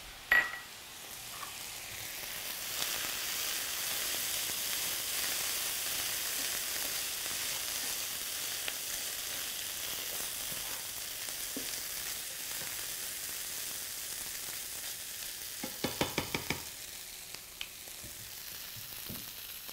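Corn, beans, squash and hominy sizzling in a hot skillet, a steady hiss, while a spatula stirs them. A sharp knock comes right at the start, and a quick run of clicks about sixteen seconds in.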